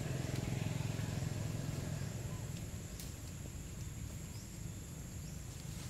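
A low, engine-like drone, loudest in the first two seconds and then fading, over a steady high-pitched whine and a few faint ticks.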